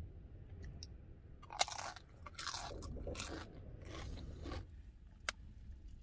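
A person chewing and crunching chips, with four or five crunches in a row, followed by a single sharp click near the end.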